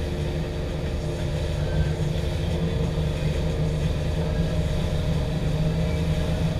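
Motorboat's outboard engine running steadily under way.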